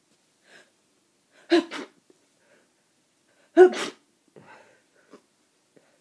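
A person with a cold sneezing twice into a tissue, the first about a second and a half in and the second, louder, about two seconds later, followed by a few faint breaths.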